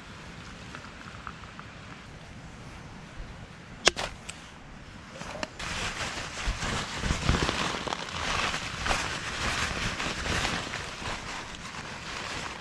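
A sharp click about four seconds in, then the crinkling and rustling of a Sea to Summit nylon dry bag being stuffed and its top rolled down.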